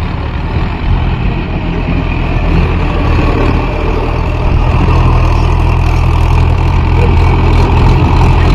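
Mahindra 415 DI tractor's four-cylinder diesel engine running steadily as it pulls a spring-tine cultivator through the soil, growing louder as it comes closer.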